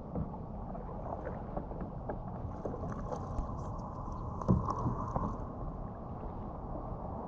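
Water splashing and lapping around a paddleboard under paddle strokes, over a steady rumble of wind on the microphone, with one louder knock and splash about four and a half seconds in.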